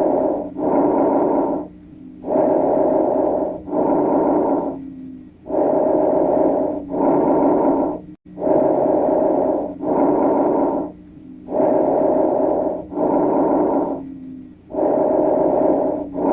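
Recorded breath sounds: a person breathing in and out in a steady rhythm. There are about six breaths, each a pair of rushing sounds, with a low steady hum underneath.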